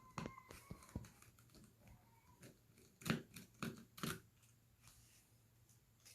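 Faint scattered clicks and taps of small tools and screws being handled while taking a smartphone apart, with a cluster of sharper clicks about three to four seconds in.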